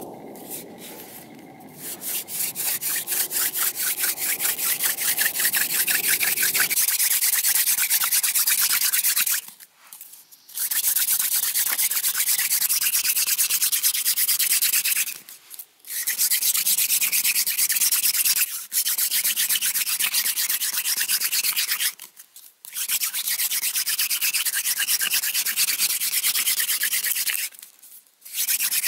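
Wooden hand-drill spindle spun rapidly back and forth between the palms, grinding into a wooden fireboard in a fast, scratchy rubbing. It comes in spells of several seconds broken by about five brief pauses as the hands move back up the spindle. This is a friction-fire attempt on a board the maker found too damp, which gave only some smoke.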